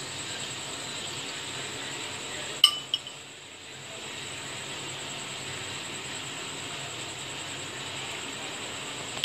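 A steel spoon scooping chicken filling gives one sharp metallic clink about two and a half seconds in, with a smaller clink just after, over a steady background hiss.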